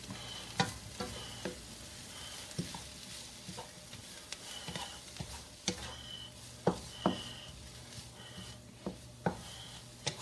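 Chopped onions sizzling in hot oil in a wok while they are stirred, with sharp clicks and knocks of the utensil against the pan scattered through.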